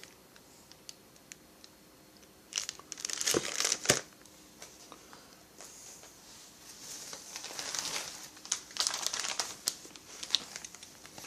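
Packaging crinkling as chainsaw kit parts are handled and unwrapped, in two spells: a short one with two sharp clicks about three and four seconds in, then a longer stretch of crinkling.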